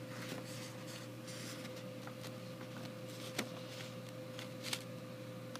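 Quiet room tone: a faint steady electrical hum with low hiss, broken by a few faint clicks, the clearest about three and a half seconds in.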